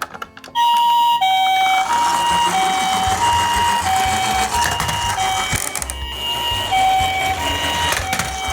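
Toy ambulance's electronic siren sounding the Japanese two-tone "pee-poh" ambulance call, alternating a high and a low note about every 0.6 seconds. It starts about half a second in, after a few light clicks.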